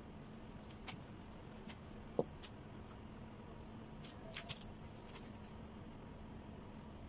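Graphite pencil scratching on paper in faint, scattered strokes, with one soft knock a little after two seconds in, over a low steady hum.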